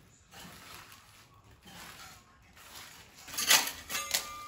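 Metal putty knife scraping loose, crumbling wall filler and plaster off a wall in a run of rasping strokes, the loudest two near the end.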